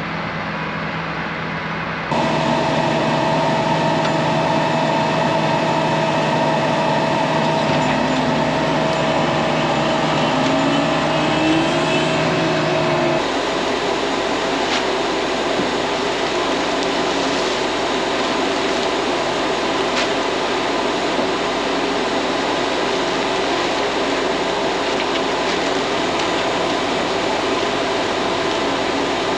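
Vehicle engine running steadily, in three edited stretches: a quieter one, then from about two seconds a louder run with a steady hum and a whine that rises in pitch shortly before it cuts, then from about thirteen seconds a steadier, noisier run.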